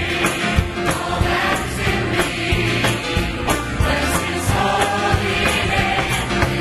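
Choir and orchestra performing an upbeat gospel song: massed choir and lead voices singing over strings and a steady beat.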